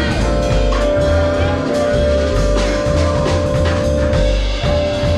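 Live band playing: drum kit and a bass line stepping between notes about twice a second, under a steady held note.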